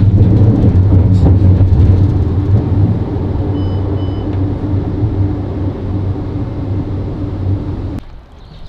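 Steady low rumble of a moving public transport vehicle heard from inside, easing off after about three seconds. Two short electronic beeps sound about halfway through, and the rumble cuts off abruptly near the end.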